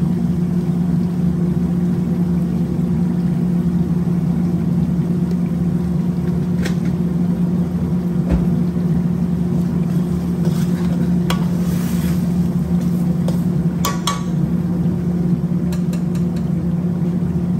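Steady low machine hum in a kitchen, even and unchanging throughout. A few light clinks of a metal spoon against an aluminium cooking pot sound over it, the loudest about two thirds of the way through.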